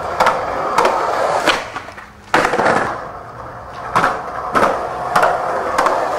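Skateboard wheels rolling on concrete, with a sharp clack about every half second to second as the board goes over joints, and a short lull about two seconds in.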